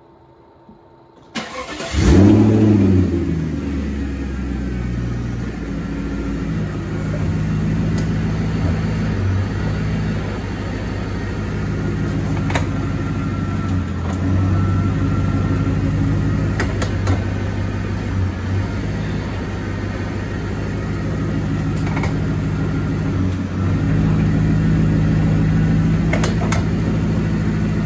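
Audi S8 engine starting about two seconds in, flaring up and then settling to run steadily. A few sharp clicks are heard over it, the clicking of a bad front CV axle.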